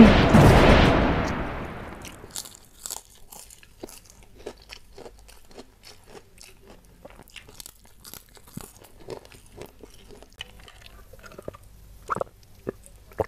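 A loud edited-in sound effect at the start, fading over about two seconds, then close-miked eating: small scattered crunches and chewing of spicy quail-egg meatballs and crackers, with a drink from a glass mug near the end.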